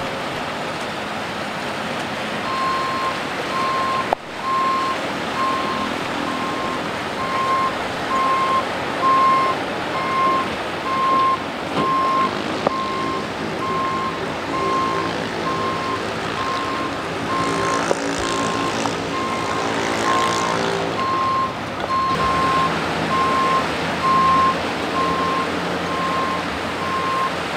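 Tow truck's reversing alarm beeping over and over at an even pace, starting a few seconds in and stopping just before the end. Under it, a steady rush of floodwater and a truck engine running, louder in the middle.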